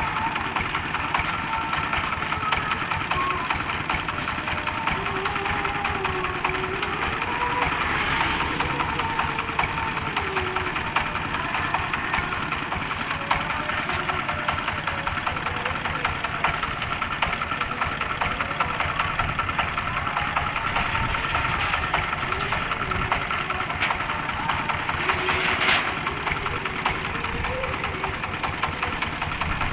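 Diesel engine driving a rice threshing machine, running steadily at an even pitch, with faint voices in the background.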